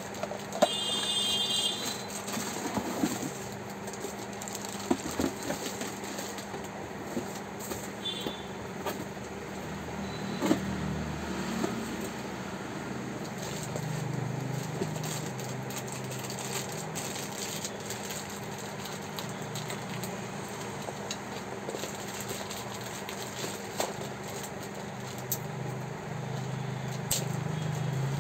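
Cardboard box and plastic wrapping being handled while a mixer grinder is unpacked: scattered knocks, rustles and crackles over a steady background hum. A few short high chirps sound near the start and again about eight seconds in.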